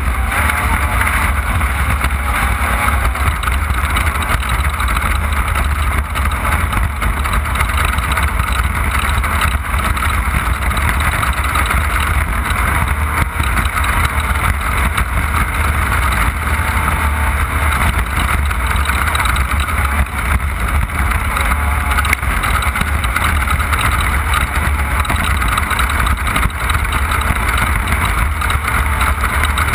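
Off-road race car running steadily at speed, its engine noise mixed with a constant low rumble and rough-road noise.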